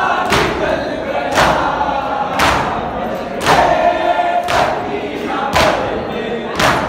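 Mourners doing matam, beating their chests with their hands in unison, a loud slap about once a second, under a crowd of men chanting a noha in chorus.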